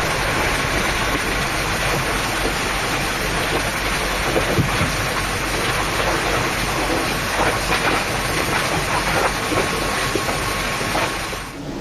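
Landslide set off by an earthquake: tons of rock and soil crashing downhill in a dense, steady rushing rumble. It cuts off sharply just before the end.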